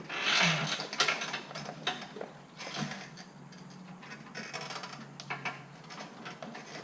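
Mechanical clattering and clicking, loudest in a scraping rush during the first second, then lighter rattles and clicks.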